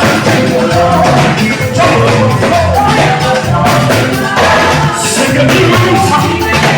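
A live band playing with singing over a steady drum beat and low bass notes.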